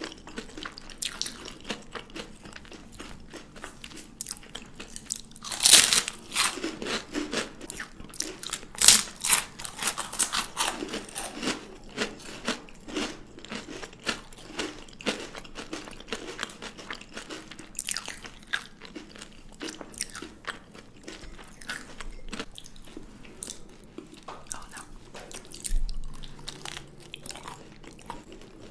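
Chocolate being bitten and chewed, with crisp crunches throughout and the loudest bites about six and nine seconds in.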